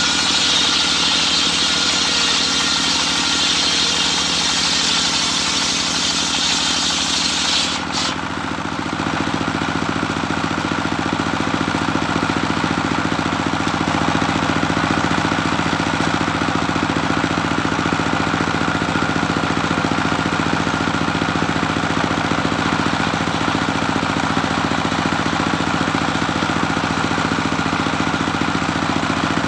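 A homemade belt-driven circular sawmill ripping a board of African wood (Maesopsis), the blade cutting loudly for about eight seconds. The cut then ends abruptly and the blade spins free while its engine runs steadily.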